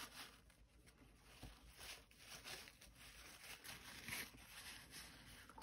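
Faint soft swishing and rustling: a watercolour brush stroking across sketchbook paper, then the brush being dabbed on a crumpled paper towel, the rustle a little louder about four seconds in.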